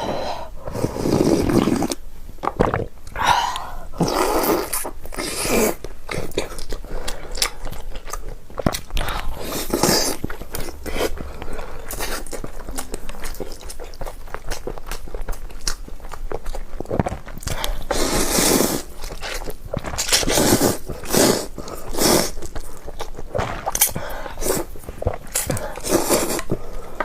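A person eating noodles and boiled eggs close to the microphone: bites, chewing and wet mouth sounds in irregular bursts.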